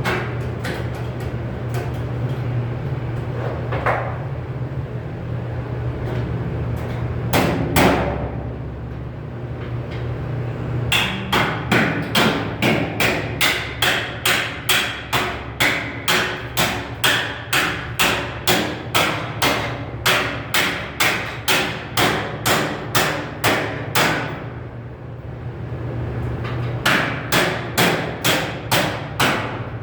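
Hammer blows on sheet metal, a long even run of about two strikes a second, then a pause and a shorter run of strikes near the end, over a steady low hum.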